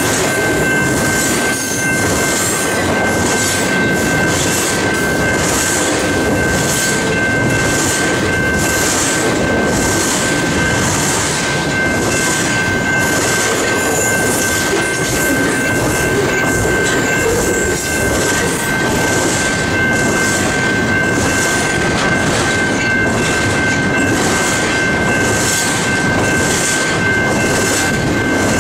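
Double-stack intermodal container cars of a freight train rolling past close by: a steady rumble of wheels on rail with a regular clatter about once a second. Several continuous high-pitched tones sit over the noise.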